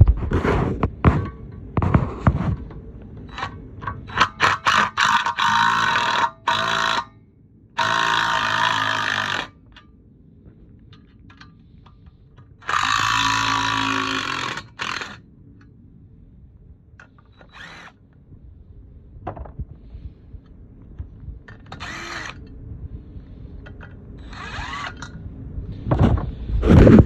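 Impact wrench running in bursts of one to two seconds, three of them loud, to take out the bolts holding a dual-disc clutch assembly together, with clinks and knocks of tools and parts between the bursts.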